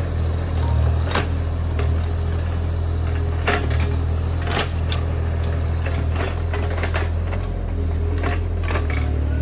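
JCB 30 Plus mini excavator's diesel engine running steadily, with irregular sharp clicks and clatter over the hum.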